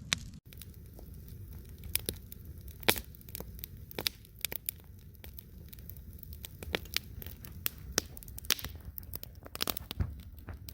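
Plastic dehydrated-meal pouch being torn open and handled, crinkling with many irregular sharp crackles over a low steady rumble.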